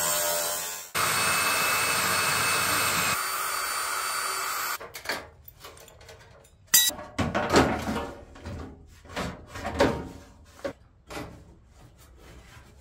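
A power tool running on the car's sheet-metal body in two steady spells, stopping about five seconds in. Scattered knocks and clanks of metal follow.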